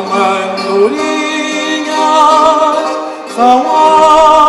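Male voice singing Coimbra fado with wide vibrato, accompanied by Portuguese guitar. A held line breaks off briefly about three seconds in, then a new phrase begins on the word "São".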